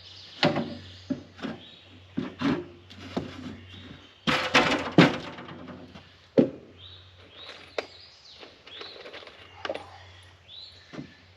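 Wooden boards knocking and thunking as they are handled and fitted, with a louder rasping stretch about four seconds in.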